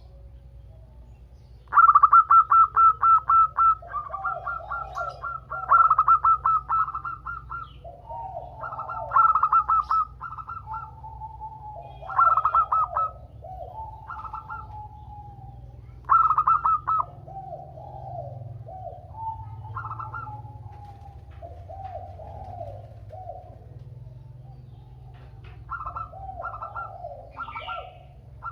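Several female zebra doves calling over one another: bursts of fast stuttering rattle notes alternating with lower rolling coos, a call used to lure male zebra doves into singing. A faint steady low hum runs underneath.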